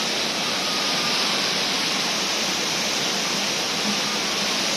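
Steady rushing of falling water from the Rain Vortex, the indoor waterfall at Jewel Changi Airport, filling the hall with an even roar, with faint voices under it.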